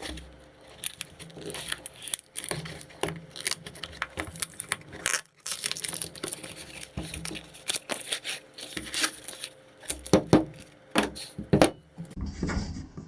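Packaging being torn open and crinkled by hand as new plier wrenches are unboxed, with irregular clicks and knocks of handling throughout.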